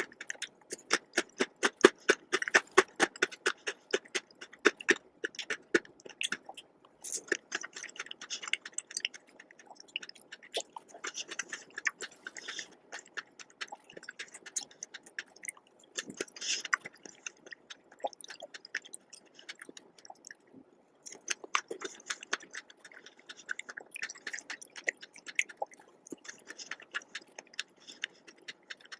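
Close-miked chewing of a strawberry, marshmallow, chocolate biscuit and whipped cream dessert: rapid crunchy clicks for the first several seconds, then looser, softer, wetter chewing with a short pause about two thirds of the way through.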